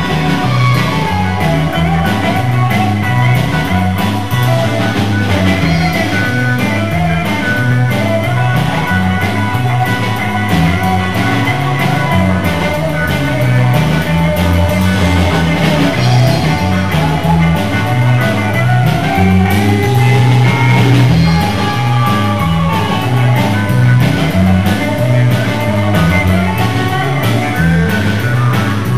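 Live rock and roll band playing electric bass guitar, hollow-body electric guitar and drum kit, with a steady beat.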